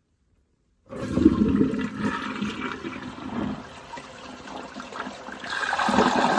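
Toilet with a 22-inch-high bowl flushing: after a second of silence, a sudden rush of water churns and drains, then swells louder again near the end.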